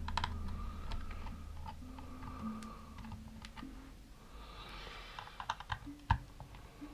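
Small screwdriver working screws out of a Panasonic HC-V180 camcorder's plastic housing: scattered light clicks and ticks. A cluster of sharper clicks comes near the end, with one louder click about six seconds in.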